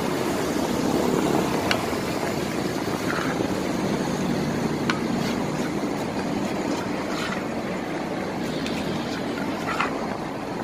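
Steady rumble of road traffic, with a few short, light clicks spread through it.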